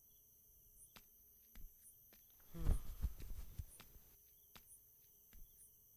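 Faint night insects chirring steadily, with scattered footsteps on the road surface and a brief louder low rumble lasting about a second near the middle.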